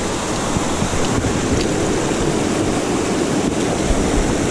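Fast mountain creek cascading over boulders close by: a steady rush of white water.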